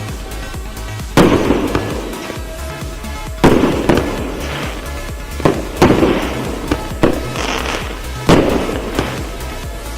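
A 364-shot firework cake of 1 to 1.2 inch calibre firing: about eight loud bangs at irregular intervals, each dying away over about half a second.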